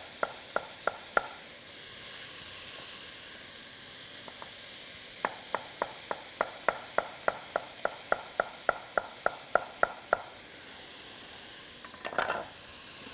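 Chef's knife chopping yellow zucchini on a wooden cutting board: a few strikes at the start, then a steady run of quick even strokes, about four a second, and a short clatter near the end as the knife is set down. Under it, a steady sizzle of onions frying in olive oil in a pot.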